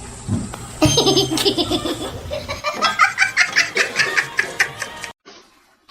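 Laughter in a rapid string of short bursts, cut off abruptly near the end.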